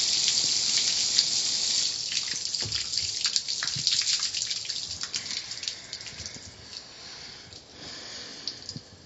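Car wash water spray hissing, then dying away gradually from about two seconds in, leaving scattered drips and splashes.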